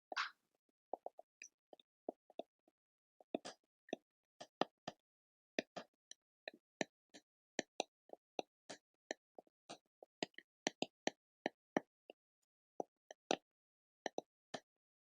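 Quiet, soft crackling: small separate pops and clicks at an uneven pace, sometimes several a second and sometimes with short gaps, with a brief scratchy rustle right at the start.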